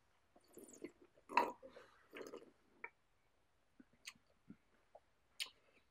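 Sipping and slurping red wine from a glass: several short wet slurps in the first few seconds, the loudest about one and a half seconds in, then a few faint mouth clicks and smacks as the wine is tasted on the palate.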